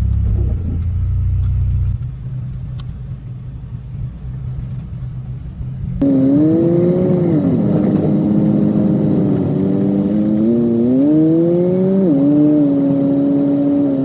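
Car engine running with a low rumble, then after a sudden cut about six seconds in, an engine tone that dips, holds, then climbs with acceleration and drops sharply near the end, like a gear change.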